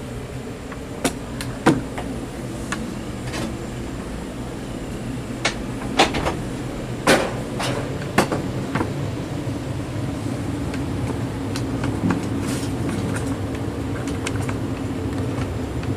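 56-inch agricultural ceiling fan running at full speed: a steady motor hum and air noise. Several sharp clicks and knocks come over it in the first half.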